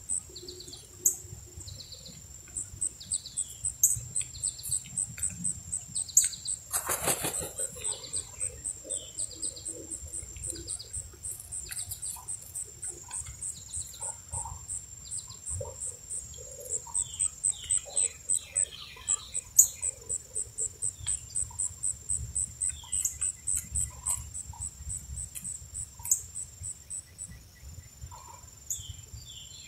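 Insects chirping in a steady high-pitched pulse, about four a second, with scattered short chirps of small birds. A single sharp knock stands out about seven seconds in.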